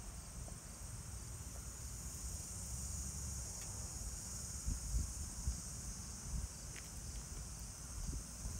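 Steady chorus of insects chirring, a high, even buzz, over a low irregular rumble, with a few faint ticks.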